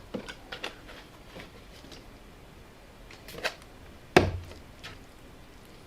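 Scattered light clicks and knocks from a spoon and containers being handled, with one louder knock and thump about four seconds in.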